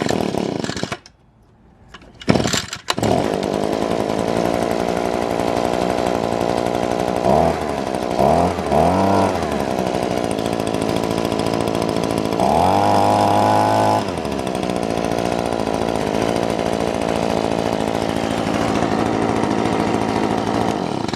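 Echo PB-2520 leaf blower's two-stroke engine cold-started on the choke with the pull cord: it sputters, catches on the third pull about three seconds in, then runs steadily. It is revved up briefly three times, held at higher speed for about two seconds, and cuts off near the end.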